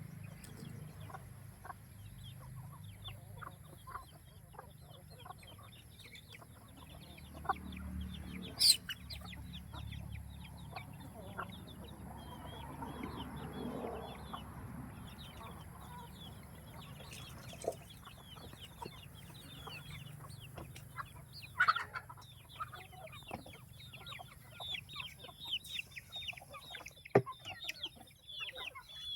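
A flock of free-range chickens clucking and chirping as they forage, with many short calls that grow busier in the last third. A few sharp clicks stand out, the loudest about nine seconds in.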